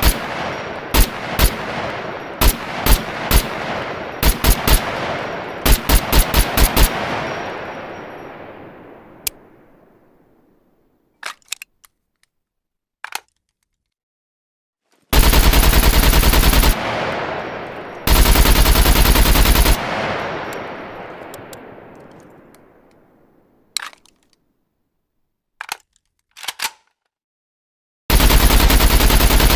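AK-47 assault rifle firing. Single shots and short bursts come in the first seven seconds, each with a long echoing tail. Two full-automatic bursts of about two seconds each come around the middle, and sustained automatic fire starts near the end, with a few short sharp clicks in the quiet gaps between.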